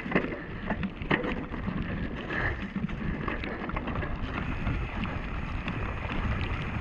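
Mountain bike riding fast down a wet gravel trail, heard from an action camera on the rider: wind on the microphone and the rumble of tyres over dirt and stones, with sharp rattles and knocks from the bike, mostly in the first second or so.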